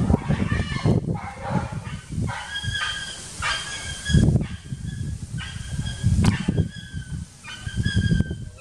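Young macaque crying: a series of drawn-out, steady-pitched, high cries, each under a second long.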